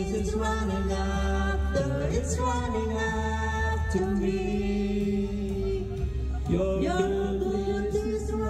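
A man and a woman singing a karaoke duet through microphones over a backing track, holding long notes with vibrato.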